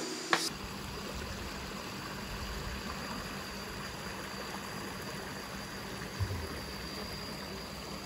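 Shallow rocky stream running over stones, a steady rush and trickle of water, with a couple of soft low thumps about six seconds in.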